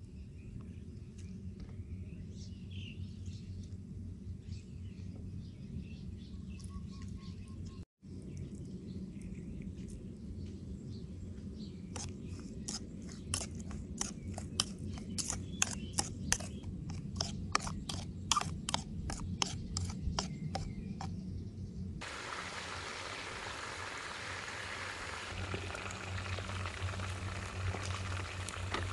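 A metal spoon stirring sauce in a bowl, clinking against the bowl about three times a second for several seconds. About three-quarters of the way through it gives way to the steady sizzle of chicken drumsticks deep-frying in hot oil in a wok.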